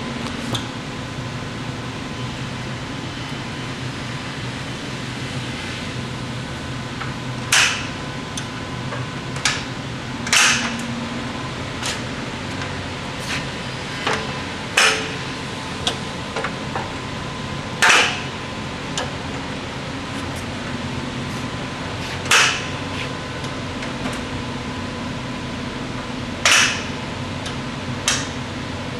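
About a dozen sharp knocks at irregular intervals, some several seconds apart, each ringing on briefly, over a steady background hum with a faint steady tone.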